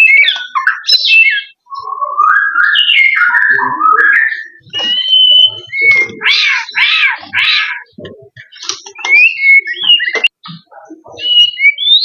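White-rumped shama singing a long run of varied loud whistled phrases, with rising and falling glides and quick trills, broken by a few short pauses.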